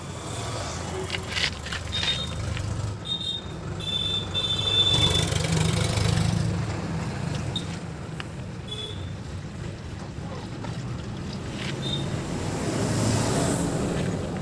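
Steel wrench clinking and ringing on the sump drain plug of a JCB backhoe loader's diesel engine, then used engine oil running out in a thick stream into a metal bucket. A steady low engine rumble runs underneath.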